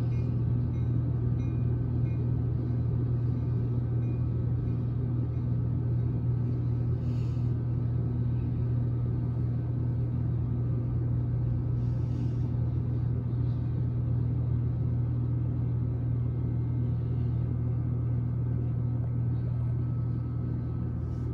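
Steady low mechanical rumble with a constant hum.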